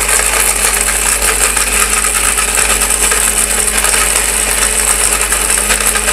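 A 1000-watt, 24000 RPM blender motor running steadily at full speed, grinding whole dried turmeric into powder, with the hard pieces rattling in the jar.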